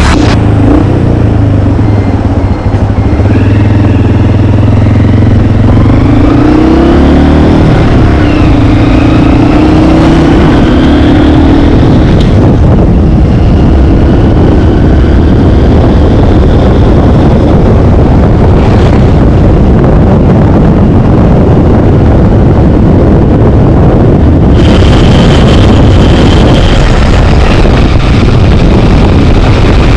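A road vehicle's engine running, rising in pitch as it speeds up a few seconds in, followed by steady road and wind noise while under way.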